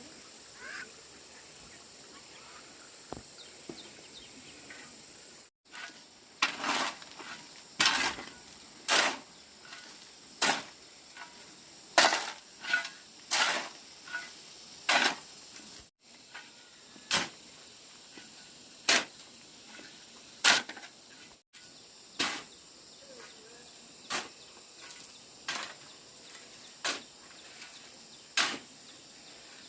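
Repeated short scraping or swishing strokes, roughly one a second, each lasting a fraction of a second, starting about six seconds in after a stretch of quiet background.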